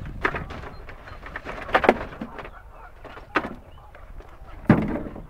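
Gizzard shad and water tipped from a plastic bucket into a plastic cooler: a handful of splashes and thumps, the loudest about two seconds in.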